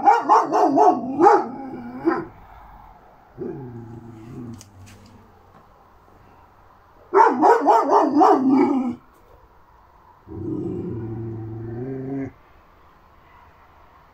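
Šarplaninac (Yugoslavian Shepherd Dog) puppy barking in two quick volleys of several barks, about four a second, at the start and about seven seconds in. Each volley is followed by a long, low, steady growl.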